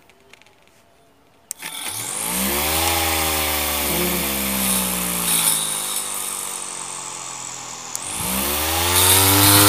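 A click, then a 775 DC motor on a 24-volt battery spins a steel-plate grass-trimmer blade up to speed with a rising whine and a high hiss. The pitch sags slowly as it runs, drops sharply near the end, then climbs back and runs louder.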